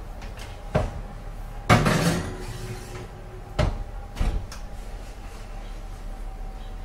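Oven door being opened and shut as a glass baking dish is put in: a few separate knocks and clunks, the loudest and longest about two seconds in, then a thump and two quick knocks around four seconds.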